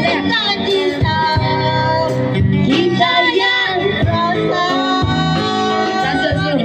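A woman singing a melody in long held notes, over live guitar accompaniment.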